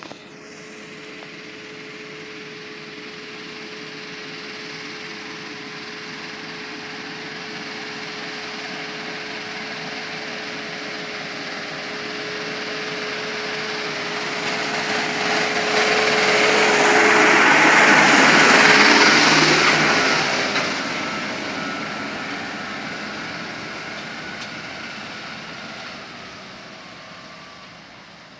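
Case IH Farmall 105C tractor's diesel engine running with a steady whine as the tractor drives toward and past close by, growing louder to a peak about two-thirds of the way through, then fading away.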